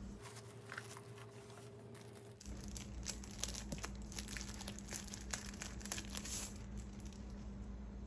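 Thin plastic bag crinkling in quick irregular crackles as it is handled and pulled off a handheld battery tester, busiest from about two and a half to six and a half seconds in.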